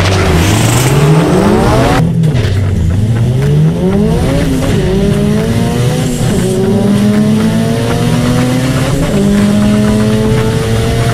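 1993 Honda Civic EG hatchback drag car's engine at full throttle on a drag-strip pass. It launches and revs up, then drops in pitch at each upshift, about four times, heard first from trackside and, after about two seconds, from inside the cabin.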